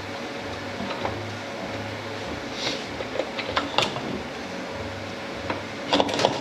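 Light clinks and knocks of metal transmission parts being handled on a workbench, with a cluster of sharper clinks near the end, over a low steady shop hum.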